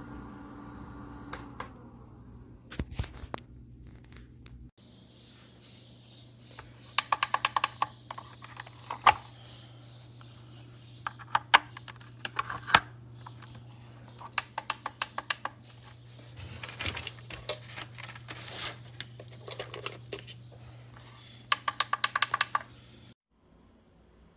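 Bursts of rapid, sharp clicking, several clicks a second, come and go over a steady low hum; both cut off suddenly near the end.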